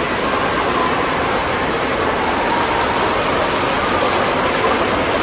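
Steady rushing and splashing of water in an indoor water park's wave pool and floor fountain jets.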